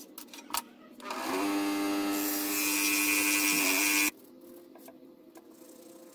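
Einhell TC-SS 405 electric scroll saw running: the motor spins up about a second in, runs steadily for about three seconds with a high whine joining partway through, and cuts off abruptly. After it, faint rubbing and scraping of a small part being sanded by hand on sandpaper.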